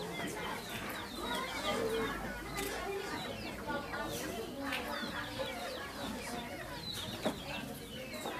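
Faint background bird calls: many short chirps scattered through the pause, with a few soft clicks.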